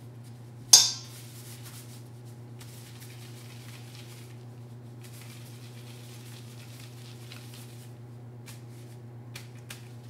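Kitchenware handled during baking: one sharp clink of a utensil against a dish about a second in, then soft scraping and rustling and a few light clicks near the end, over a steady low hum.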